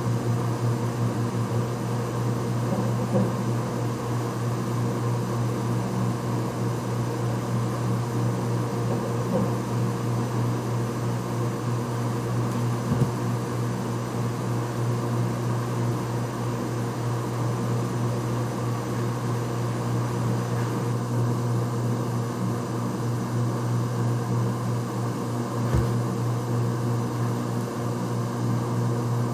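Steady low machine hum, with a faint click about 13 seconds in and another near 26 seconds.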